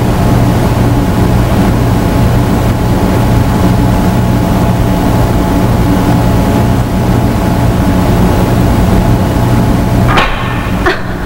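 Steady, loud low electronic hum with several held tones: a science-fiction machinery sound effect for an alien undersea factory. A short burst of noise breaks in about ten seconds in.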